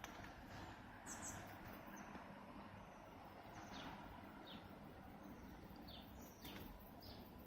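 Faint bird chirps: short, high, falling notes repeated every second or so over a quiet background hiss.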